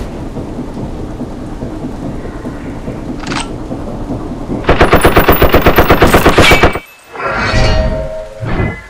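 Action sound effects: a dense low rumble, then about two seconds of rapid machine-gun fire, a dozen shots a second, that cuts off suddenly, followed by two shorter heavy blasts.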